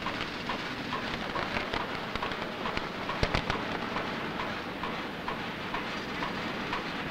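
Steady machinery noise from a construction site, with a faint regular squeak about twice a second and a cluster of sharp knocks about three seconds in.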